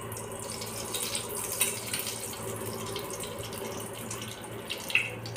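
Mustard oil being spooned into a hot kadhai, with a steady soft hiss of the oil in the pan and a few light clinks of the steel spoon against the bowl.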